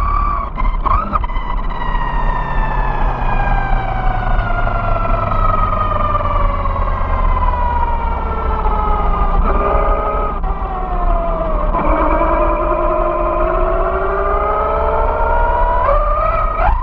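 Vaterra Glamis Uno RC buggy driving on asphalt: its electric motor and gears whine in several tones that slowly fall in pitch, shift around ten seconds in, and rise sharply near the end as it speeds up, over a steady rumble of tyres on the pavement.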